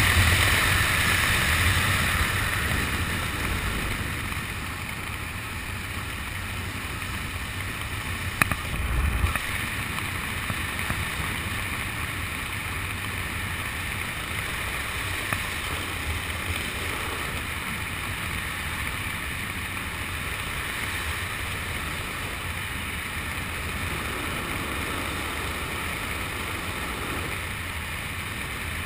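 Wind rushing over a skydiver's helmet camera, loud in freefall for the first few seconds, then dropping to a softer, steady rush under the open parachute. A couple of short knocks come about nine seconds in.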